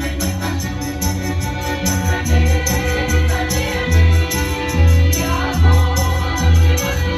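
Choir singing a song over instrumental backing with a steady beat, jingly strokes at the top and a heavy, repeating bass line.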